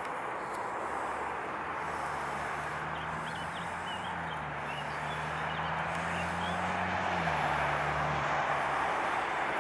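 Steady rush of background traffic with a low engine hum that comes in about two seconds in, shifts pitch twice and fades near the end, like a vehicle passing. A few faint bird chirps sound over it.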